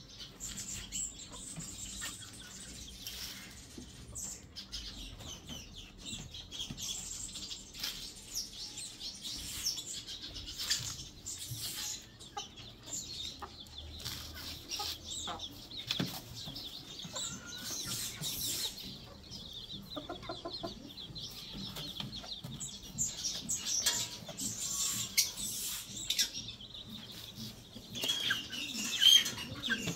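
Domestic chickens clucking, with many short high chirps and cheeps throughout and a louder burst of calls near the end.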